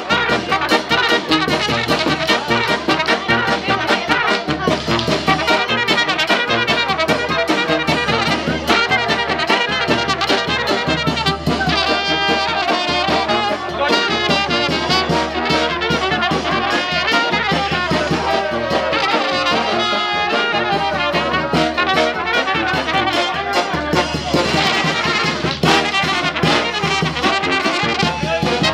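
Brass band of trumpets and other brass horns playing a lively tune over a steady drum beat.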